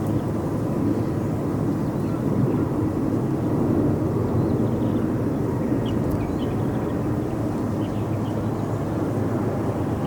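Jet airliner's engines, a steady low rumble heard from outside.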